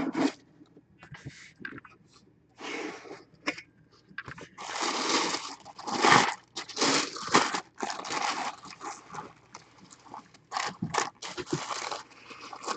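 A cardboard box and its packaging being opened and handled by hand: irregular rustling, crinkling and scraping, loudest in the middle, with a few short clicks near the end.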